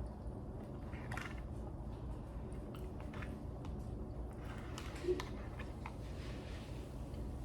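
A person chewing and biting food close to the microphone, with scattered soft crunches and mouth clicks and a brief louder low blip about five seconds in.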